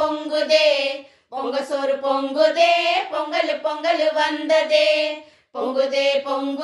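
Women singing a Tamil Pongal folk song in sung phrases, breaking off briefly about a second in and again near the end.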